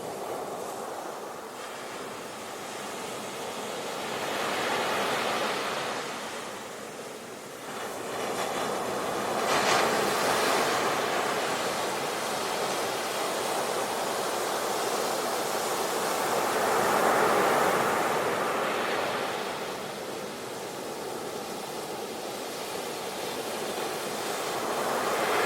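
Ocean surf: waves wash in and swell into loud surges every several seconds, then fall back to a steady hiss.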